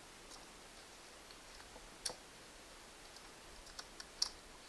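A few faint, sharp clicks of the saw chain and bar being handled: one clearer click about two seconds in and a few smaller ones near the end, against low background.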